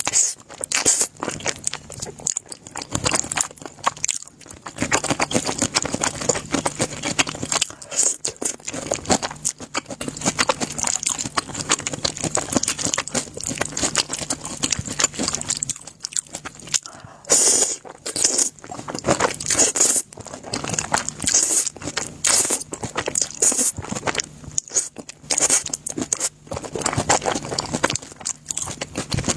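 Close-miked eating of black noodles: slurping and chewing, with many quick wet smacks and clicks of the mouth.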